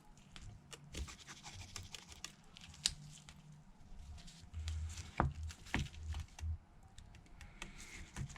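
Small clicks, taps and light scraping of a precision screwdriver and tweezers on the screws and metal bracket inside an iPhone, with a few soft bumps on the work surface.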